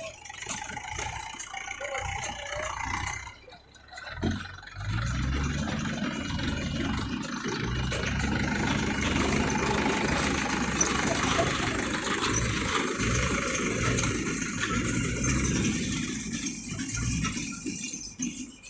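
Mahindra 475 Yuvo tractor's diesel engine running with a baler, mechanical rattling over a steady low engine pulse; the sound drops briefly about four seconds in, then runs on steadily.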